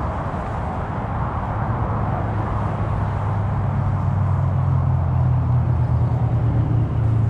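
A low, steady engine hum builds from about two seconds in and grows louder to the end, over a constant outdoor rush.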